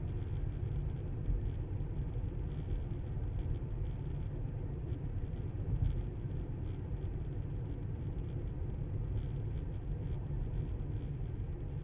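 Steady low rumble of tyre and road noise from a Tesla electric car on the move.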